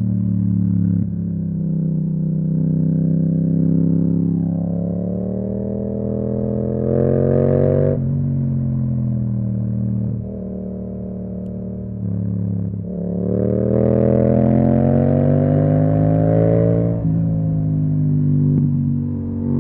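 Yamaha MT-07's parallel-twin engine through an Akrapovic exhaust, accelerating through the gears. Its pitch climbs, then drops sharply at each upshift, several times over.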